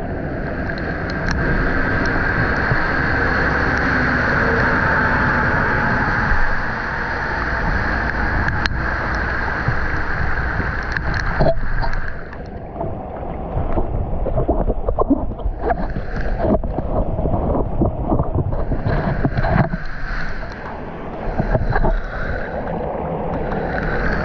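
Muddy floodwater gushing out from under a concrete drain slab and churning into a roadside gutter: a loud, steady rushing and splashing that turns choppier about halfway through. Wind buffets the microphone.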